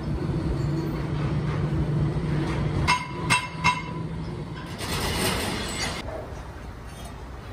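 Steady low hum of workshop machinery, then about three seconds in three quick ringing metallic clinks in a row, followed by a brief scraping rustle.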